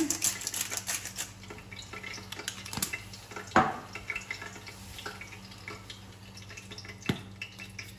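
Cooking clatter at a stainless steel frying pan: a pepper grinder twisted over the pan, then the light knocks and scrapes of a wooden spoon and utensils against the pan, with a sharper knock about three and a half seconds in. A steady low hum runs underneath.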